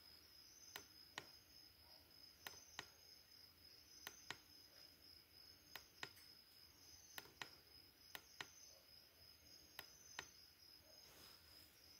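Near silence: a faint, steady high-pitched cricket trill, with faint sharp clicks coming in pairs about every second and a half.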